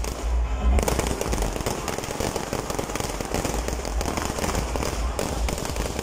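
Firecrackers going off in a rapid, unbroken string of sharp pops and crackles, many bangs a second, growing denser about a second in.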